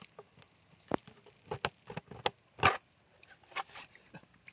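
Clicks and knocks of a 3D-printed boat's hatch lid being unlatched at its ABS lid locker and lifted off. There are about half a dozen sharp taps, the loudest about two and a half seconds in.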